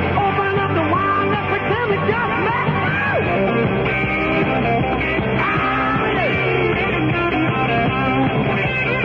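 Rock-and-roll music received off a long-wave AM radio broadcast. It plays steadily, with the sound cut off above about 4 kHz, the narrow bandwidth of AM reception.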